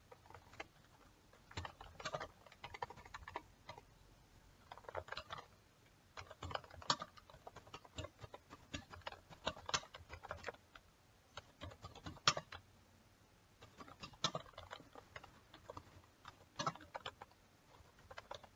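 Faint computer keyboard typing: irregular runs of key clicks with short pauses between them.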